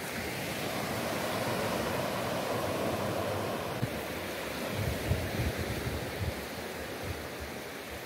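Steady rushing outdoor noise of wind on the microphone and sea on a rocky shore, with some low buffeting bumps around the middle.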